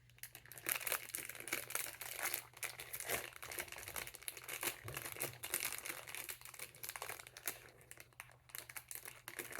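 Small plastic packets crinkling and crackling as they are handled and torn open, an irregular run of crinkles throughout.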